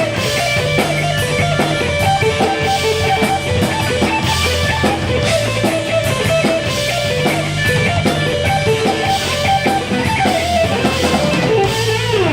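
Live heavy metal band playing: distorted electric guitar riffing over bass and drum kit, with regular cymbal crashes.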